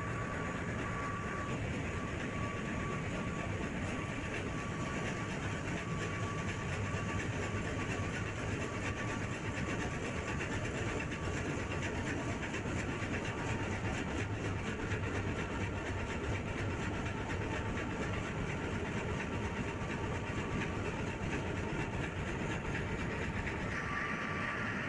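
Steady running din of a container ship's engine-room machinery, even and unbroken, with a faint thin whine that fades out early on and comes back near the end.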